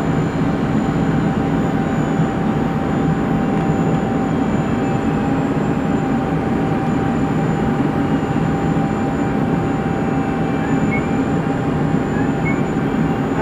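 Steady flight-deck noise of a Douglas DC-8-73 descending on approach: its CFM56 turbofans and the rush of air past the cockpit make a constant low din, with a thin steady whine running through it.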